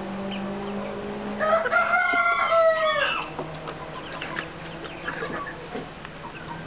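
Bantam rooster crowing once, a short high-pitched crow of under two seconds starting about a second and a half in, followed by a few soft clucks from the hens.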